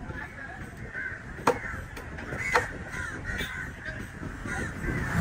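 Crows cawing repeatedly, with two sharp, louder sounds about a second and a half and two and a half seconds in.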